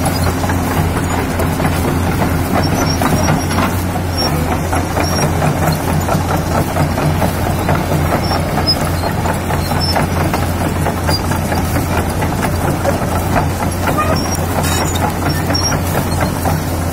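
Kobelco crawler excavator's diesel engine running steadily at a loud, even level with a low, constant hum while the machine works.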